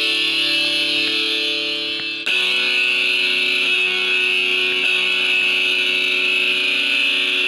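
Instrumental background music of sustained held tones, switching to a new chord about two seconds in.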